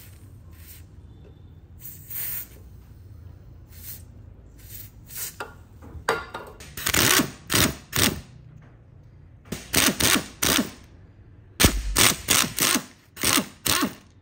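Small electric screwdriver whirring in short trigger bursts, three or four at a time in quick clusters, backing out the screws from a drill motor's end cap.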